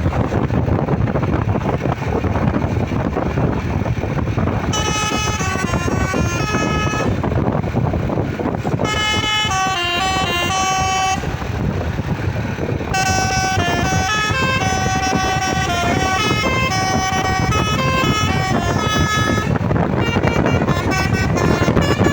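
Telolet 'basuri' multi-tone musical horn playing a stepping tune in four phrases, the first starting about five seconds in and the longest in the middle, over a steady low rumble.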